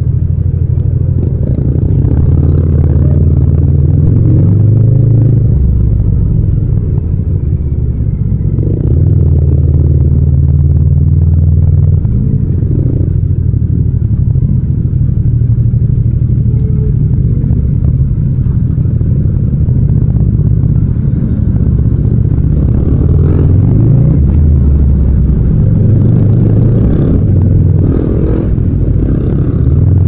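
Yamaha MT-07's 689 cc 270-degree parallel-twin engine and exhaust running at low revs while riding at low speed, the throttle eased open and shut so the pitch rises and falls several times, most often in the last ten seconds.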